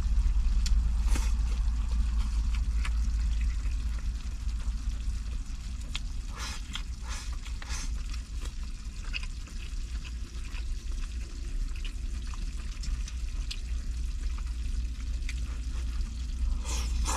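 Pan of stir-fried lamb slices sizzling and bubbling on a charcoal heater, with scattered light clicks of utensils, over a steady low hum.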